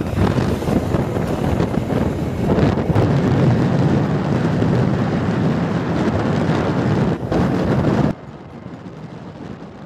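Wind buffeting the microphone on a moving motor scooter, over road and engine noise. It cuts off suddenly about eight seconds in, leaving a much quieter steady hum.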